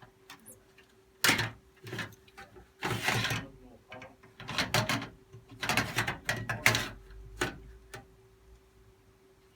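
Irregular clicks and knocks with a few short scraping rustles, like hard objects being handled, over a faint steady hum.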